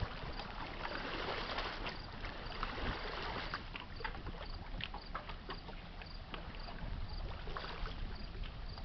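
Low steady hum of a passing freighter's engine carried across the river, under wind noise, with a faint high chirp repeating about twice a second.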